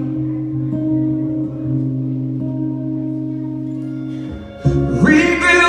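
Band music with no singing: held chords ring steadily, then after a brief dip the full band comes in louder with heavy bass, and a rising sung note leads into the chorus near the end.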